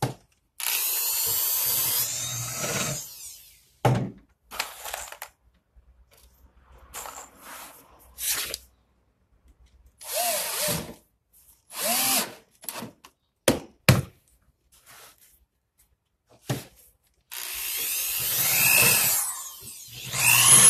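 Cordless drills running in short bursts of one to two seconds, with a longer run of about three seconds near the end, boring into the edge of a white MDF cabinet panel as the carcass is screwed together. A sharp click comes about two-thirds of the way through.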